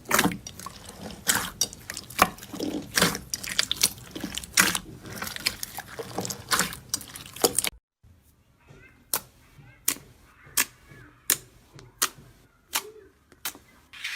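Slime being squished and poked by hand, giving a dense run of wet crackling and popping. After a sudden cut about eight seconds in, a quieter stretch of single sharp pops comes at an even pace, roughly one every 0.7 seconds.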